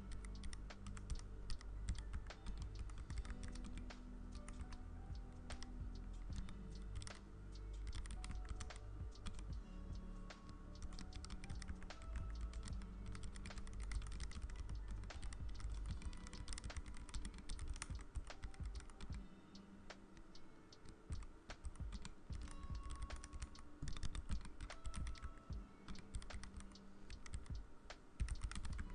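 Continuous rapid typing on a K61 Pro keyboard fitted with clear Cherry-profile PBT keycaps, a stream of irregular keystroke clicks, over background music.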